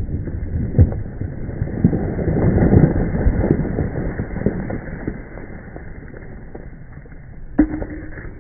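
Rumble and clatter of blasted granite and debris settling just after a rock blast, with many sharp knocks about two to three seconds in, then dying away, and one sharp knock near the end.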